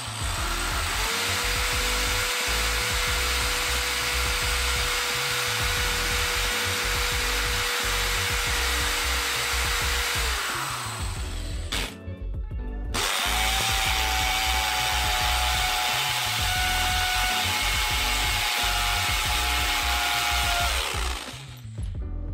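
Craftsman hammer drill boring into a concrete floor with a masonry bit that is getting dull. It runs twice: about ten seconds, a short pause, then about eight seconds more. Each time the motor winds up to a steady whine over the grinding of the bit and winds down when released, and the second run whines higher.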